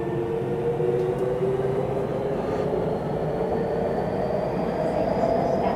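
Tokyu 3000 series electric train running, its motor whine rising slowly in pitch and growing louder as it gathers speed, over steady rumbling running noise.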